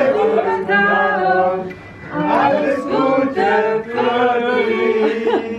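Several people singing a birthday song together.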